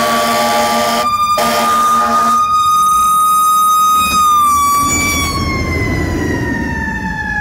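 Fire apparatus's Federal Q2B mechanical siren held at its peak pitch, then slowly winding down from about four seconds in. Over it, an air horn blast ends about a second in and a second blast follows for about a second.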